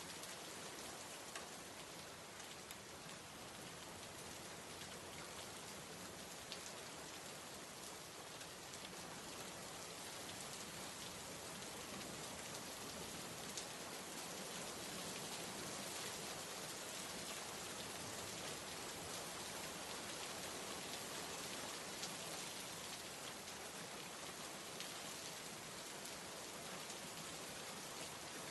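Steady rain: a continuous soft hiss dotted with faint drop ticks, growing slightly louder through the middle.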